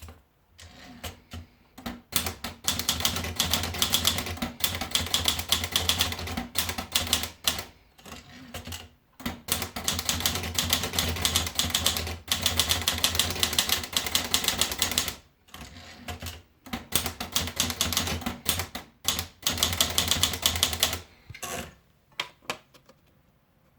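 Olivetti Dora manual portable typewriter being typed on: fast runs of key strikes, broken by a few short pauses. The typing starts sparsely and stops shortly before the end.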